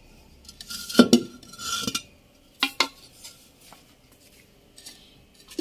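Terracotta pots and lids knocking and clinking as they are handled: a knock with a short ringing tone about a second in, then two sharp clicks close together and a few faint taps.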